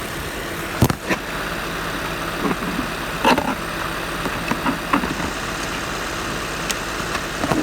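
Car engine idling steadily, with a series of sharp clicks and clacks about a second in and again through the middle and near the end, as hood latch assemblies and their connector are handled and swapped.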